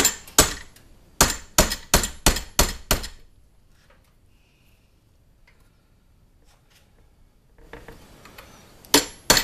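A hammer drives a punch to drift a tight dovetailed sight across a 1911 pistol slide clamped in a bench vise. There are about eight sharp, ringing metal strikes in the first three seconds, a pause with light handling, then another quick run of blows near the end.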